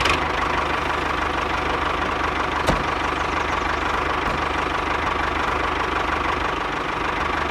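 Tractor engine running steadily with a fast, even chugging beat. A single sharp click about two and a half seconds in.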